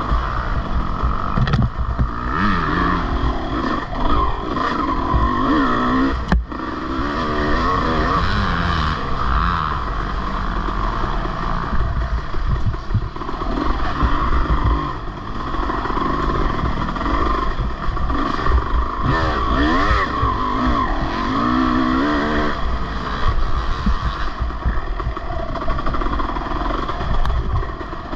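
Off-road racing engine revving up and down over and over, with a constant rough rush of wind and rattling under it.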